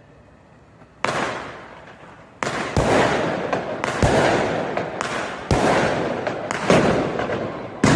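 Fireworks going off in a city street: a string of about eight sharp bangs starting about a second in, each trailing off in a long echo between the buildings.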